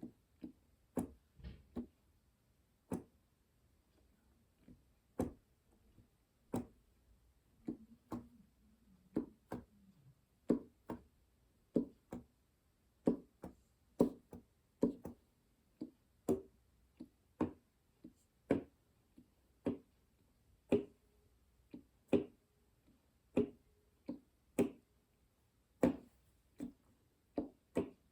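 Mechanical key action noise of a Yamaha NP-35 Piaggero digital piano: a string of separate clacks and knocks as keys are struck and released, about one or two a second, each with a short low ring. The action is noisy on the upstroke.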